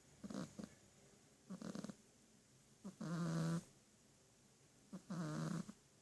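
A sleeping pet snoring: short snuffling breaths, then two longer, louder snores about two seconds apart, the first about three seconds in.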